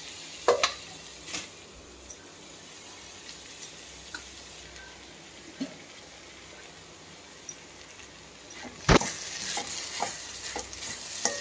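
Finely chopped beetroot sizzling steadily in an aluminium kadai, with a few light clinks. About nine seconds in there is a loud knock, and then a steel spoon scrapes and stirs the cooked beetroot against the pan.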